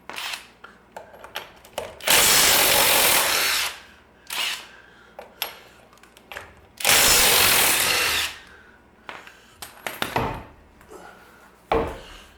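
Power impact wrench running in two bursts of about a second and a half each, spinning off the wheel's lug nuts, with metal clinks and knocks of nuts and parts being handled between bursts.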